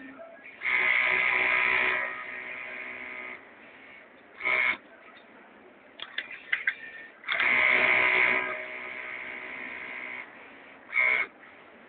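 Industrial sewing machine stitching towels in two runs. Each run is a loud whine for about a second that drops to a quieter stretch, followed a little later by a short burst, with light clicks in between.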